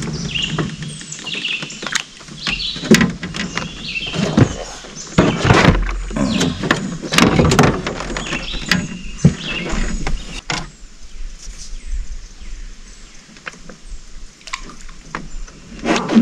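Irregular knocks, clatters and thumps of gear being handled in a small fishing boat, a plastic tackle box lid among them; busiest for the first ten seconds, then mostly quiet with scattered ticks, and a few more knocks near the end.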